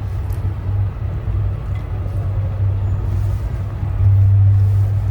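A steady low engine hum, which swells louder about four seconds in.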